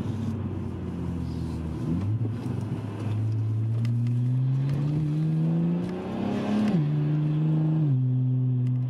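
2009 BMW 335i's twin-turbo inline-six, heard from inside the cabin, pulling the car along under light acceleration. The engine note climbs steadily for several seconds, drops sharply at an upshift about seven seconds in, then steps down once more near the end.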